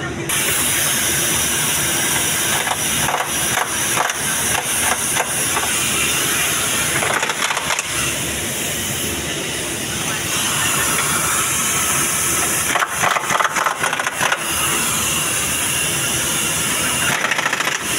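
Pneumatic impact wrench driving steering-rack mounting bolts, hammering in several short rattling bursts over a steady hiss of air.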